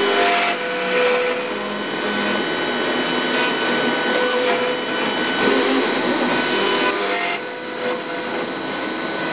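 ShopBot Desktop CNC router cutting lettering into a walnut plaque: the spindle runs with a steady whine over the rush of the dust-extraction vacuum at the cutter's shroud. Some of the tones come and go as the cut moves.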